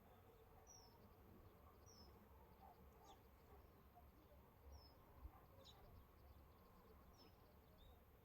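Near silence outdoors: a faint low rumble with about five short, high, falling chirps spread through.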